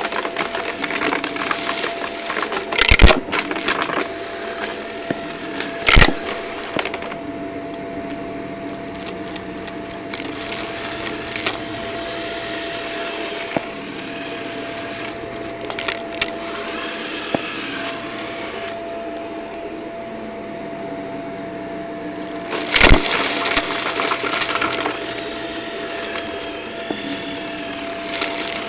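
Vacuum cleaner running with a steady whine while it sucks up a crunchy dry mess, the debris crackling and rattling through it. A few loud crunching knocks stand out, the loudest about two-thirds of the way through.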